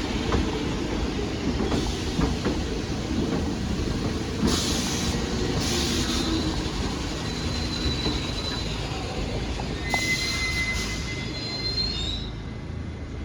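New York City subway train running through the station with a steady rumble and short hissing bursts. Its wheels squeal in thin high tones in the later seconds.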